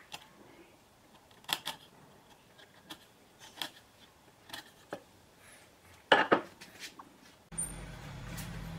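Scattered light clicks and taps of hand tools and pieces of wood being handled on a workbench, with a sharper double knock about six seconds in. Near the end a steady low hum starts suddenly.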